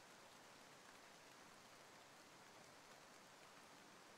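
Faint, steady rain: an even patter of rainfall.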